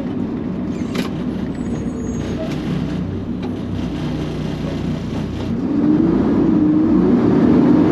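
Garbage truck engine running, heard from inside the cab, with a short sharp sound about a second in; from about five and a half seconds in the engine grows louder and its note rises as the truck speeds up.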